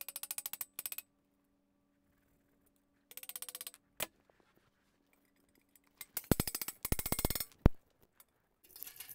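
Rapid metallic clicking in three short runs, with a few single sharp knocks, as a tool works at an aluminum closet door track nailed to a concrete floor to pry it up. A faint steady hum lies underneath for most of it.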